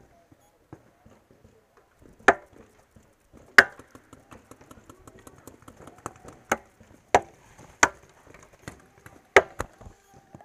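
Pump paintball markers firing: six loud, sharp cracks at uneven intervals, with fainter pops between.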